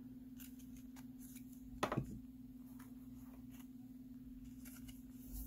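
Faint plastic rustling and light clicks of a clear plastic trading-card sleeve being handled as a card is slid into it, with one sharper tap about two seconds in.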